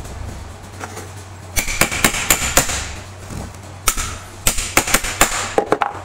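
Knocks, clacks and scraping of an electric motor's finned housing and end cover being fitted together by hand over the shaft and bearing during reassembly. Two bursts of quick knocks, one about a second and a half in and another about four seconds in.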